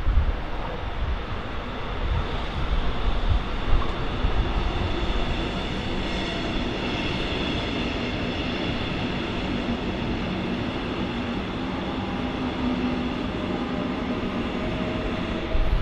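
A train moving along the track: a steady rumble of wheels and running gear, with thin high whining tones over it from about six seconds in.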